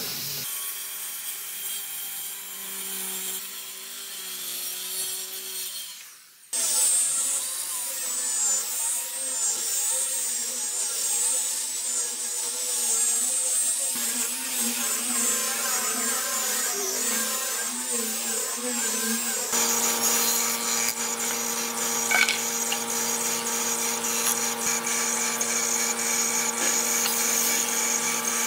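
A power tool works a pine board for about six seconds and cuts off. Then an electric angle grinder fitted with a sanding disc sands the panel, its high whine wavering as it is worked over the wood. About two-thirds of the way in this gives way to a jointer running with a steady hum as a board is fed across it.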